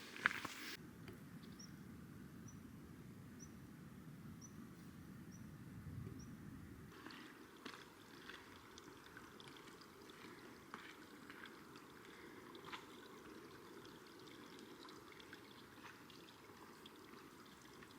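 Faint outdoor ambience: a steady rush of distant running water, with a faint high chirp repeating about once a second in the first few seconds. About seven seconds in the sound changes, leaving a thinner rush with scattered light clicks.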